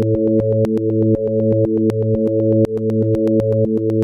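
Live electronic music: low, layered synthesizer tones step to new notes about every half second over a fast, steady stream of sharp clicks.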